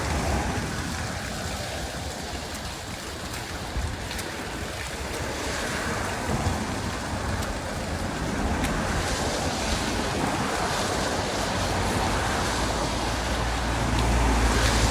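Floodwater rushing and swirling down a storm drain, a steady rush, with wind buffeting the microphone that gets stronger near the end.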